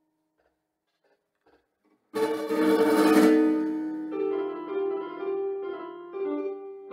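About two seconds of near silence with a few faint taps, then a loud chord strikes and rings. It is followed by a melody of single sustained notes on an electronic keyboard.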